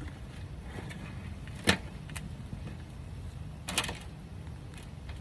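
Hands digging potatoes out of garden soil: a sharp knock about a second and a half in and a short patter of clicks near four seconds, over a steady low rumble.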